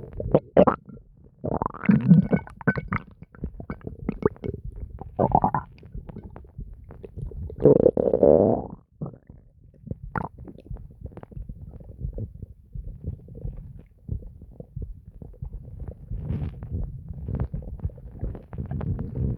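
A person's stomach gurgling and growling in irregular bursts. The longest and loudest growl comes about eight seconds in, and softer, constant crackly gurgling follows.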